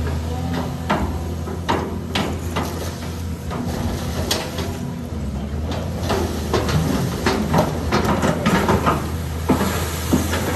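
Irregular knocks and clicks over a steady low engine hum.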